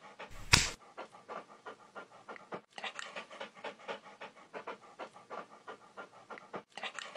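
German Shepherd dog panting quickly and evenly, faint and close, with one short, sharp, louder sound about half a second in.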